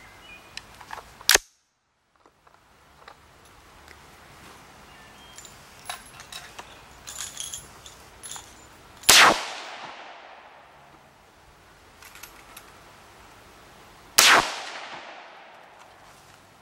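AR-15 rifle fired three single shots several seconds apart, the later two ringing out in a long echo.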